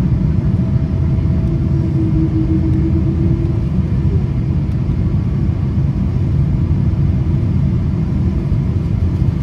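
Boeing 787 cabin noise on final approach with flaps extended: the engines and the airflow over the airframe make a loud, steady low rumble heard from a window seat.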